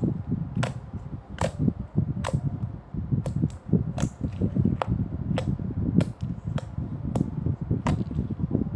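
Slime being squeezed and kneaded by hand, with sharp popping clicks about once or twice a second over a low, steady squishing.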